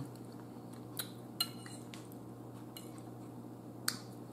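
Fork clinking against a plate as food is scooped up: a few light, separate clinks, two of them about a second in and another near the end.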